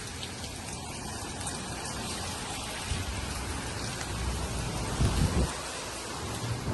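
Heavy rain falling, a dense steady hiss, with a low rumble swelling briefly about five seconds in.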